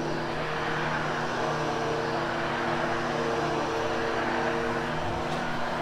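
Hoover HushTone upright vacuum cleaner running steadily as it goes over damp, freshly cleaned carpet, a constant motor hum under an even rush of airflow.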